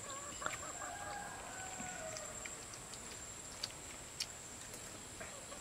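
A rooster crowing once: a drawn-out call of about two seconds that sags in pitch at the end.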